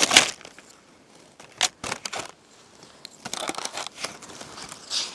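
Rustling and light clicks of paper and art supplies being handled, such as a watercolour book's pages and covers being moved about, with a few sharp taps about a second and a half in and a denser crinkling stretch near the end.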